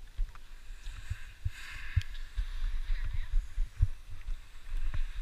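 Muffled low rumbling with irregular dull thumps on a helmet-mounted GoPro Hero 4's microphone inside its housing, the noise of wind and head movement rubbing and knocking the camera case; a brief higher hiss comes in about a second and a half in.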